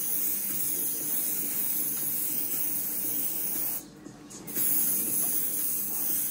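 Airbrush spraying paint: a steady hiss of air that stops for under a second just past the middle and then starts again. A faint low hum runs underneath.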